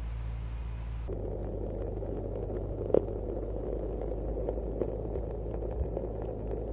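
Water trickling and dripping inside a mesh deep-root watering tube, a steady rush with many small ticks and one sharp click about 3 s in, over a steady low hum.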